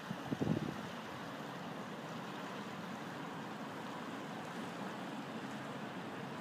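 Steady low rumble of a large motor cargo barge passing along a canal, its engine and wash heard as an even, unpitched drone. A brief low thump about half a second in.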